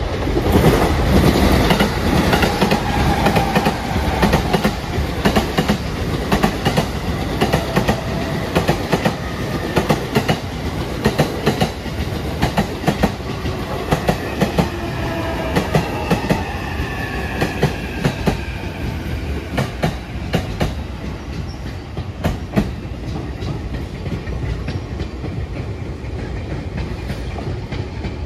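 Wheels of a JR Utsunomiya Line suburban electric train clacking over the rail joints as it runs into a station at low speed: a long run of sharp clacks over a steady rumble, loudest about a second in.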